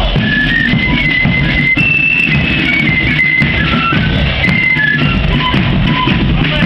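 Marching flute band playing a tune, the flutes carrying a high stepping melody over a steady beat of drums.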